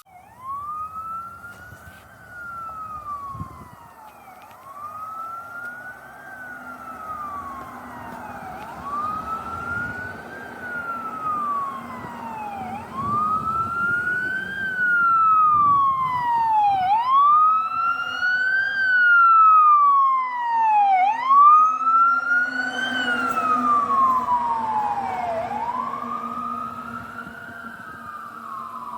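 Fire engine siren wailing, its pitch rising and falling in a slow cycle about every four seconds, with the truck's engine running underneath. The siren grows louder as the engine approaches, then fades as it passes and moves away.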